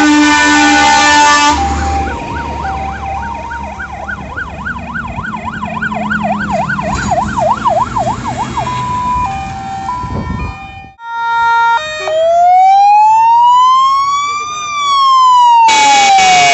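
Fire engines passing one after another with sirens on: a loud multi-note horn at the start, then a fast yelp over a stepping high-low two-tone, then a slow rising and falling wail. A loud horn blast comes in again near the end.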